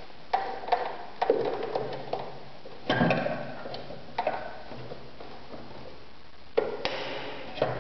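Irregular clicks and knocks from a Privileg Super Nutzstich 1511-1 sewing machine being handled around the needle and presser foot, with a brief metallic rattle about three seconds in and again near the end.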